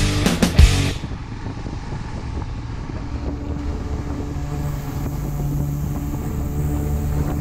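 Music cuts off about a second in, leaving a vehicle's engine running with wind noise on the microphone. The engine note grows stronger and steadier from about halfway.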